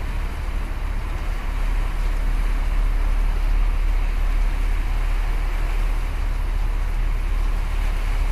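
Wind rumbling on the microphone over the steady wash of waves breaking on shoreline rocks, an even roar with no separate events.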